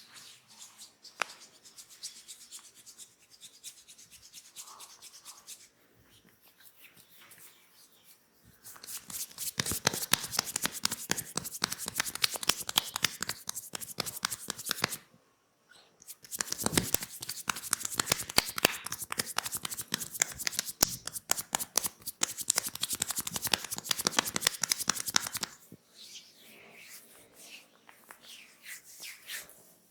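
Massage sounds: hands rubbing and scratching over skin, then two long runs of rapid hand tapping. The first run lasts about six seconds and the second about nine, with a brief pause between them. Quieter rubbing follows near the end.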